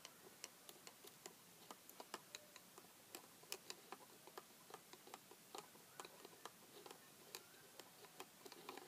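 A small spoon clicking irregularly against the inside of a small mug, several light taps a second, as chocolate milk is stirred.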